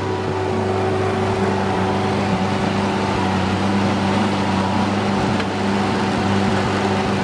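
Case Uni-Loader skid steer's engine running steadily while the machine holds a log on its forks.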